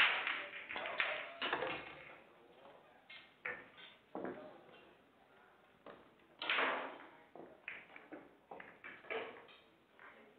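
Pool balls clacking: a sharp cue strike on the cue ball at the start, followed by ball knocks. After that come a run of separate clacks and knocks as the balls are pulled from the pockets and set down on the table for the next rack.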